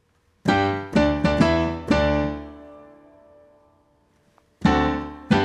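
Piano chords played on a Korg digital piano: five chords in quick succession, the last left to ring and fade out, then two more chords near the end.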